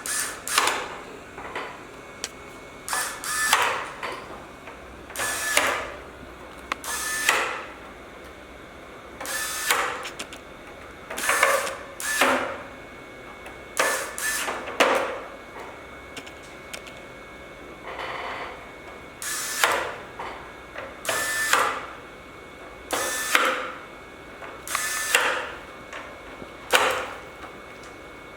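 Electric screwdriver driving screws into an LED display module's cover in short whirring runs, a second or less each, repeated many times, often two in quick succession.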